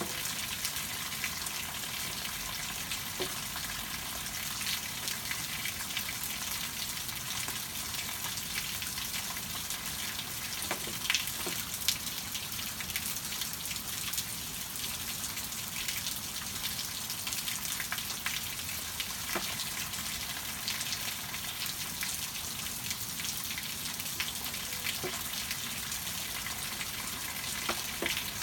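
Steady rain falling, an even hiss with scattered drops tapping, and two louder taps about eleven and twelve seconds in.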